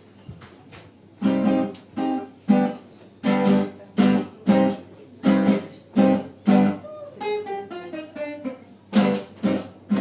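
Acoustic guitar strummed in short chords in a repeating rhythm, about two a second. A little after halfway a falling run of single notes takes over, and the chords come back near the end.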